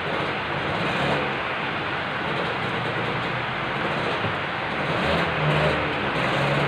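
Heavy rain falling, a steady hiss that drowns the room.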